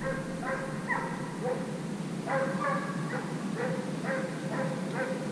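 Russian piebald hound baying in a string of short pitched yelps, about two a second, with a short break near the middle: the hound giving tongue as it runs a hare's trail.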